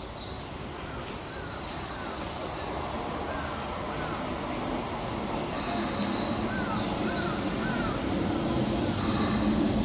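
Keisei electric train running in along the platform on curved track, its rumble growing steadily louder as it draws nearer. Over it, a crow caws several times in short groups of two or three.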